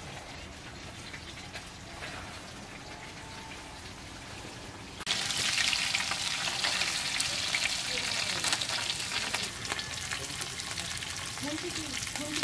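Pieces of katla fish sizzling in hot oil in a wok, turned with a metal spatula; the loud crackling sizzle starts suddenly about five seconds in, after a quieter stretch of low hiss.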